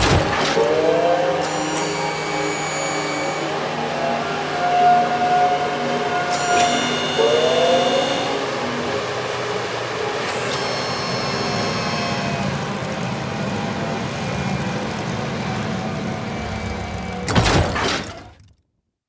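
A vehicle sound-effect sample playing: a steady noisy rush with a siren-like tone that rises twice and holds, plus high ringing tones. It ends with a short burst and cuts off suddenly.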